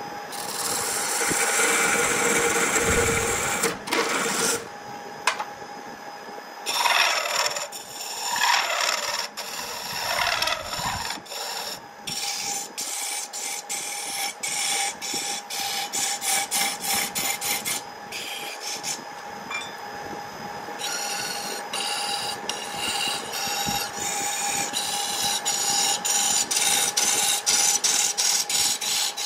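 Wood lathe turning a wooden spindle while a turning tool scrapes and cuts the spinning wood, a rasping scrape in many short repeated strokes. The lathe's electric motor hums steadily underneath.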